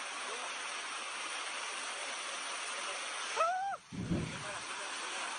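Steady rushing roar of a muddy flash flood carrying debris. About three and a half seconds in, a person's short cry rises and falls over it; the sound then breaks off briefly and comes back with a low thud.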